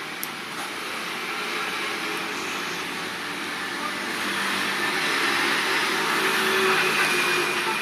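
Steady noise of road traffic, building to its loudest about six to seven seconds in and easing off near the end.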